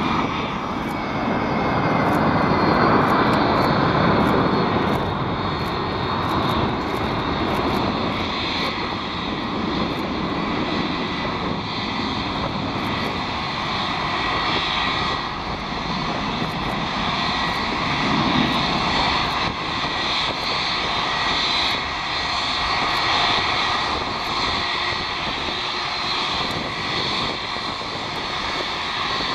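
Boeing 757's Rolls-Royce RB211 jet engines running at taxi idle as the airliner rolls in: a steady rush of jet noise with a thin whine on top.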